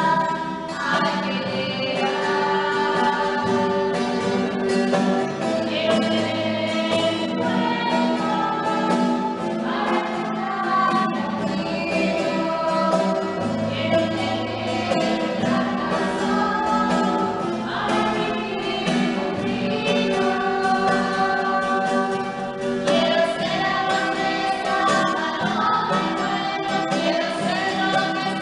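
Christian choral music: a choir singing continuously, with no pauses.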